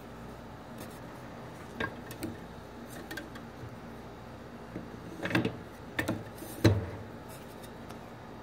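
A few scattered knocks and clunks of parts being handled over a faint steady hum, the loudest about two thirds of the way through.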